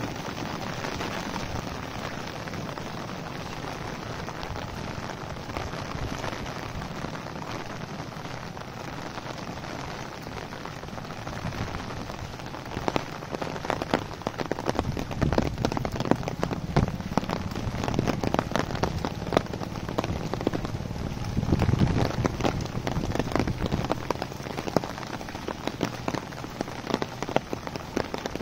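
Heavy monsoon rain falling steadily on a wet brick road and leafy vegetation, with sharp close drop hits growing more frequent from about halfway.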